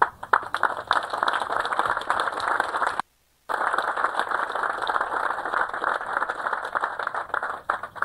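Audience applauding: a dense patter of many hands clapping. It drops out completely for about half a second around three seconds in and stops near the end.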